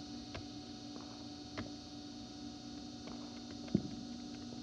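Faint distant firework pops, a few scattered ones and one sharper thump about three and a half seconds in, over a steady low hum.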